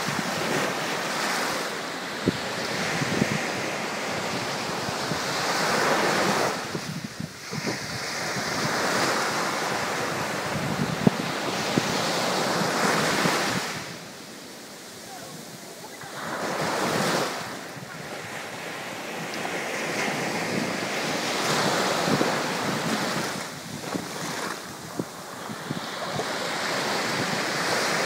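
Small Mediterranean waves breaking at the shoreline and washing up and back over the beach, the surf swelling and easing every few seconds with three short quieter lulls.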